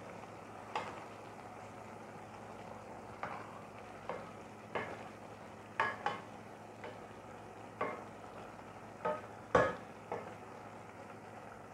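A wooden spatula stirring food in a stainless steel pot. It gives short knocks and scrapes at irregular spacing, roughly once a second, and the loudest comes near the end.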